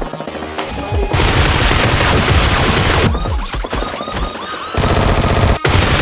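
Rapid automatic gunfire over background music. There is a long continuous burst starting about a second in, and a second fast rattling burst near the end.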